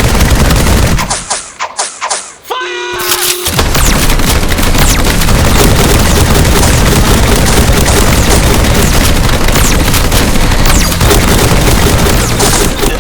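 Rapid gunfire and booms, dense and loud, broken by a short lull between about one and three and a half seconds in.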